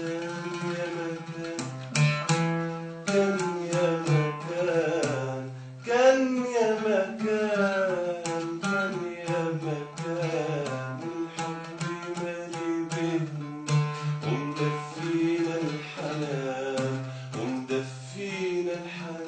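An oud being plucked, accompanying a voice singing a slow melody.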